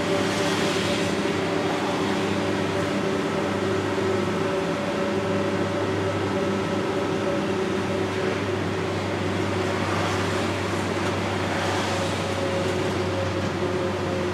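NAW trolleybus driving on a wet road: a steady electric hum and whine from its drive, over the hiss of tyres on the wet surface. The hiss swells briefly at the start as a van passes the other way, and again a little before the end.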